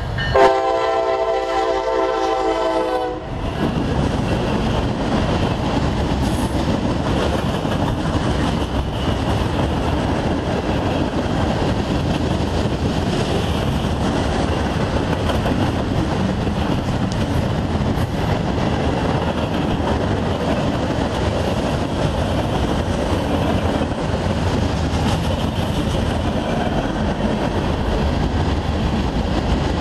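Norfolk Southern freight locomotive's air horn sounds one chord blast of about three seconds that cuts off sharply, then the locomotives and a long string of freight cars roll past with a steady noise of wheels clicking over the rail joints.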